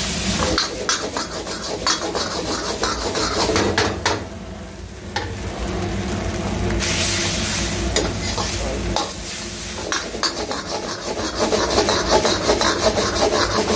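Metal ladle scraping and clattering against a wok as egg noodles and vegetables are stir-fried and tossed, with frying sizzle that swells to a loud hiss about seven seconds in.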